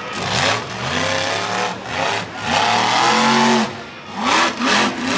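Monster truck engine revving hard in repeated surges, its pitch climbing and falling, with short drops between bursts as the truck drives across the dirt arena.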